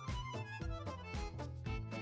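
Background music with a steady beat and quickly changing notes.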